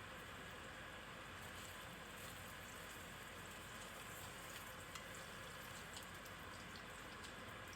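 Food frying in a pan: a faint, steady sizzle with a few small crackles, the bubbling that shows it is cooking well.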